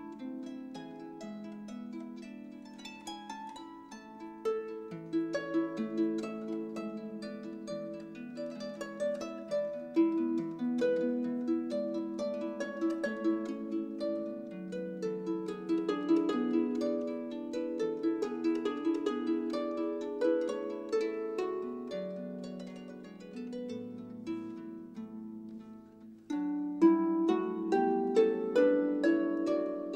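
Instrumental background music of plucked strings, many notes sounding at once, each note fading after it is struck. It grows louder near the end.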